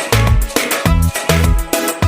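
Background music: an upbeat electronic dance track with a heavy, regular bass beat.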